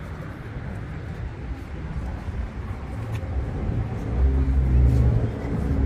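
A car engine running, low and steady, growing louder about four seconds in and staying up near the end.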